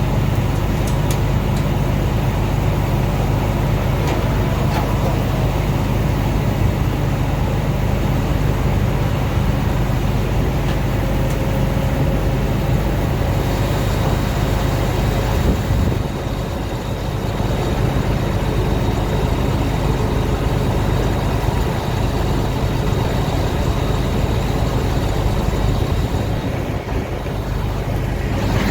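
Combine harvester running steadily with a low engine drone, dipping briefly a little after halfway and again near the end.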